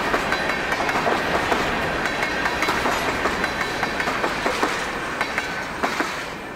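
Freight cars rolling past, steel wheels clacking over rail joints in a steady clatter. The clatter thins and fades near the end as the last car, a tank car, goes by.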